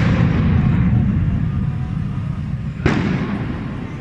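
A loud firework bang about three seconds in, with an echoing tail, over a continuous low rumble.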